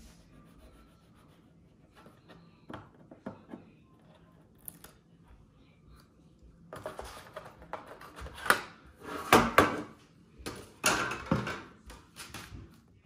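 Irregular knocks and rustling of objects being handled, sparse and faint at first and growing louder and busier in the second half.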